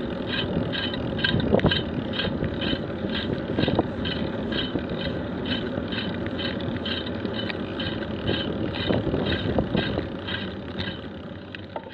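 Wind rushing over the action camera's microphone and tyre noise as a bicycle rolls along a tarmac road, with a faint even ticking about three times a second.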